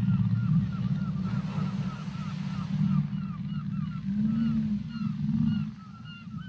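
Underwater whale calls: a run of short, repeated chirping calls, about three a second, over a steady low rumble, with a couple of short low moans about two-thirds of the way in.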